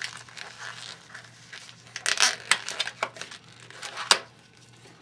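Gloved hands rubbing and stretching a small black latex twisting balloon while tying off a cut piece: irregular scuffing and crinkling, busiest around two seconds in, with one sharp click a little after four seconds.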